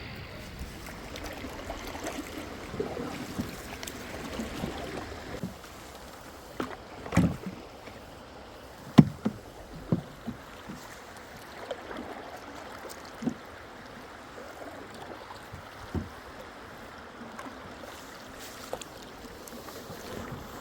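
Steady rush of river water, with a handful of sharp knocks scattered through it, the loudest about 7 and 9 seconds in: a canoe ferry on the river, its paddles bumping the hull.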